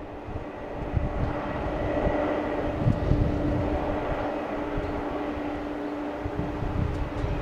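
Jet engines of a Boeing 787-8 Dreamliner, Rolls-Royce Trent 1000 turbofans, on final approach for landing. A steady rumble with a held humming tone grows louder over the first two seconds as the airliner comes closer, then stays level.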